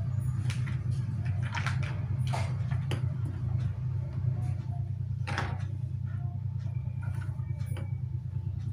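Battery-powered toy fishing game running with a steady low whirr, with scattered short plastic clicks and taps as it is handled.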